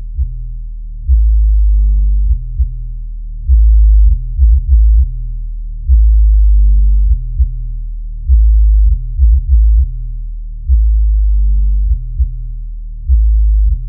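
Music played through a 1986 Rockford Fosgate Punch 8-inch woofer, low-passed by a crossover so that only the bass comes through. Deep bass notes play in a repeating pattern, a long held note followed by a few short hits, about every two to three seconds.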